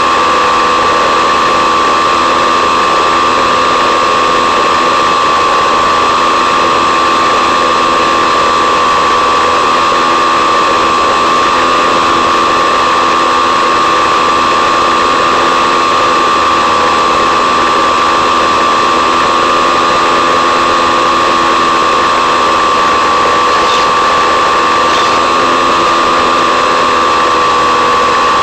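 Electric motor and propeller of a model plane running steadily at low throttle: a continuous, unchanging whine with a hiss over it. The motor draws only about 2.5 amps while the plane climbs in a thermal.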